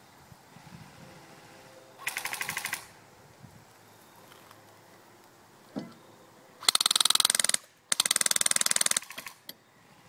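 Airsoft electric rifle (AEG) firing full-auto: a short rattling burst about two seconds in, then two longer, louder bursts back to back from about two-thirds of the way through, each a fast, even string of shots.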